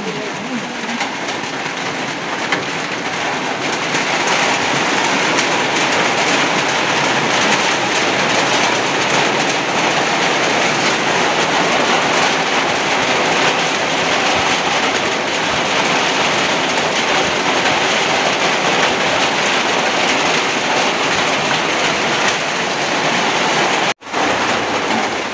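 Heavy rain on a corrugated metal roof overhead: a steady, dense rattle that grows a little louder over the first few seconds and cuts out for a moment near the end.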